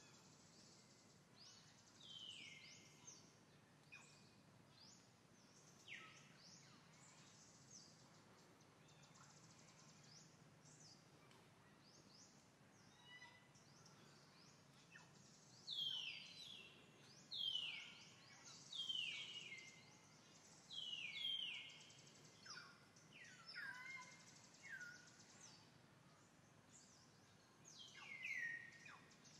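Birds calling, a series of short calls that each sweep down in pitch, coming more often in the second half, over a faint steady outdoor hiss.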